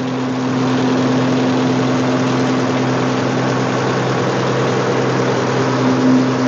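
Grinding mill running steadily as it mills Bambara nut into flour for okpa: a loud, constant machine hum with a steady drone.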